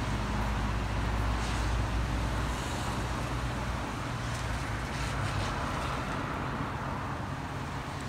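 Traffic on a rain-wet road: tyres hissing on wet pavement with the low rumble of passing vehicles, the rumble loudest for the first three seconds and then easing off. A steady rain hiss lies underneath.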